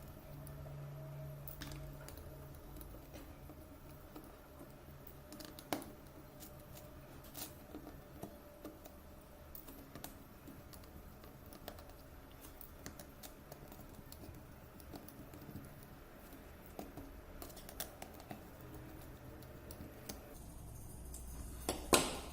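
Scattered light clicks and taps of small parts and tools being handled while a phone is worked on, with one sharper click near the end.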